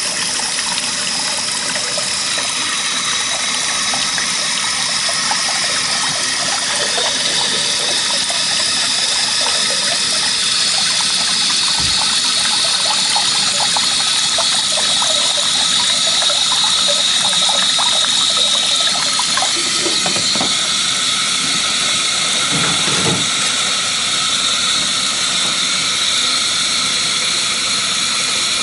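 Faucet running steadily into a sink while its temperature is checked for a 105-degree hand soak; near the end the stream pours into a plastic wash basin set in the sink.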